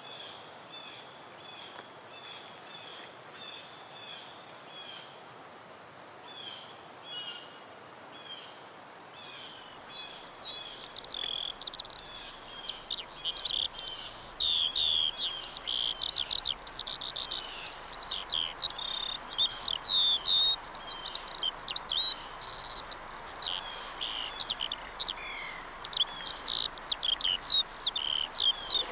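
Birds chirping and singing: at first one bird repeats a short, high call about twice a second, then from about ten seconds in a busy, louder chorus of many birds chirping over one another.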